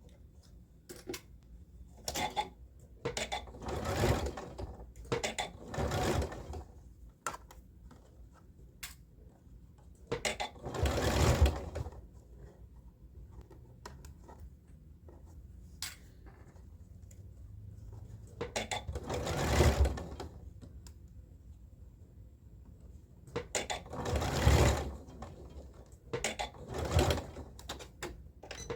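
Electric sewing machine stitching a seam through thick brocade in several short runs, the longest of them about a second and a half, with pauses between runs while the fabric is repositioned.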